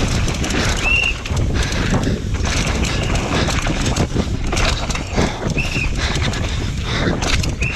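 Downhill mountain bike ridden fast over rough dry dirt: wind rumbling on the action camera's microphone, tyres on the ground, and the chain and frame rattling in quick irregular knocks, with a short high squeak three times.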